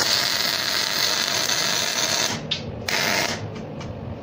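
MIG welding arc crackling and hissing steadily as wire feeds into the weld. About two seconds in it breaks off, starts again briefly, and drops away near the end as the arc is stopped and struck again.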